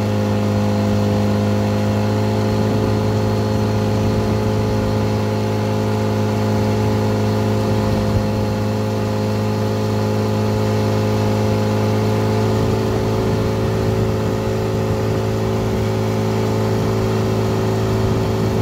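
Small boat's motor running steadily at cruising speed, an even engine drone with water rushing past the hull.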